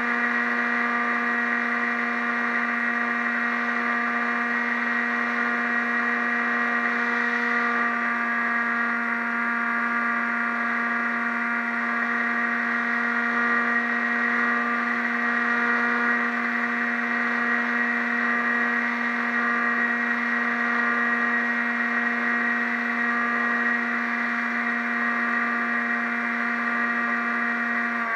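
A radio-controlled model airplane's motor and propeller, heard from on board, running at a steady pitch at constant throttle over a haze of wind noise.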